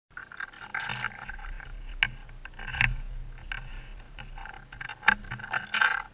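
Handling noise: irregular rustling broken by several sharp clicks and knocks, while a Ducati motorcycle's ignition is switched on, with no engine running.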